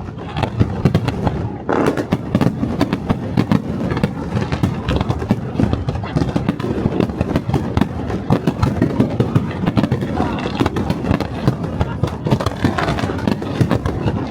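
Fireworks display: a dense, continuous run of rapid bangs and crackles with no pause.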